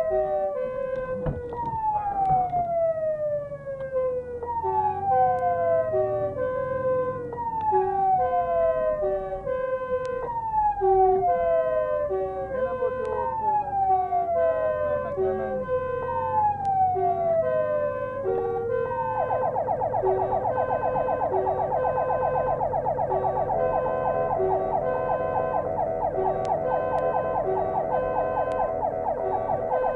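Fire engine's electronic siren sounding on an emergency run: a falling wail repeating about every two seconds alongside a pulsing steady tone. About 19 seconds in it switches to a fast warble.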